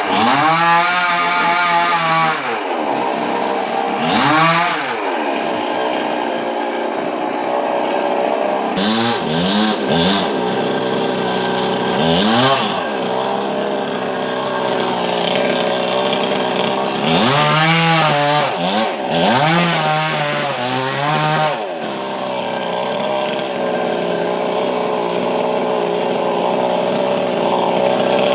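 Chainsaw engine running and being revved up and back down several times, settling to a steadier run between the revs and through the last few seconds.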